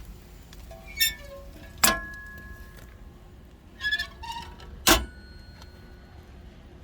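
A few sharp clinks and knocks, one at a time and a second or so apart, several with a brief ringing after them.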